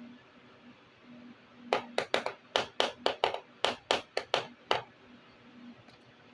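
About a dozen sharp clicks and taps in quick succession, starting a little under two seconds in and stopping shortly before the end: small plastic miniature kitchen toy pieces being handled and set down.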